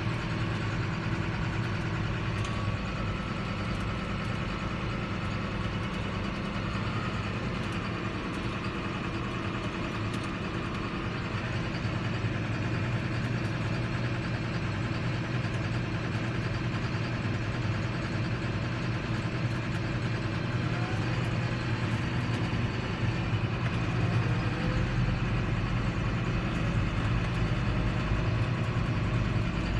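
John Deere 7530 tractor's six-cylinder diesel engine running steadily at a constant low hum, heard from inside the cab while the tractor drives slowly across the field.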